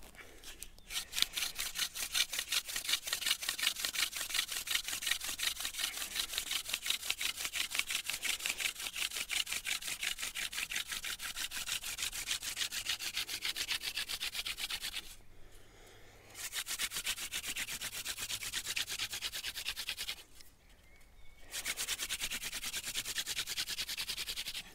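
Hand-drill friction fire: a wooden spindle spun fast back and forth between the palms into a dry wooden hearth board, a rapid rhythmic wood-on-wood rubbing that burns in the socket and raises smoke. It comes in three bouts, with two short breaks about 15 and 20 seconds in as the hands go back to the top of the spindle.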